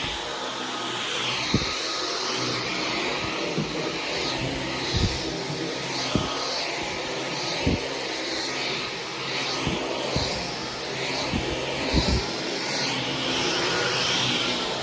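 Dyson V15 Detect cordless stick vacuum running on medium power, its motor giving a steady high whine that rises slightly near the end. The cleaner head is pushed back and forth, with short low knocks every second or so.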